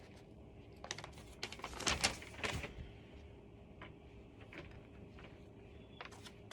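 Cat tree parts being handled during assembly: a quick run of knocks and clatters starting about a second in, loudest around the middle, then a few faint clicks.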